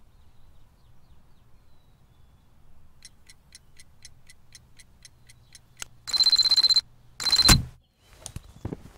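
A clock ticking about four times a second, then an alarm clock ringing loudly in two bursts, the second cut short by a thud.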